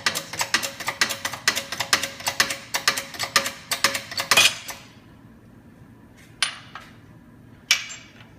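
Quick metallic taps, about five a second, as the old oil seal is worked out of a Hydramatic gearbox housing. They stop about halfway through, followed by two single sharp clicks.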